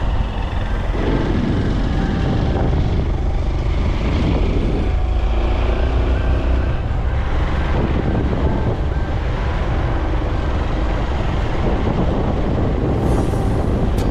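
Honda XR190L motorcycle's single-cylinder engine running steadily under way, with the rumble of the ride.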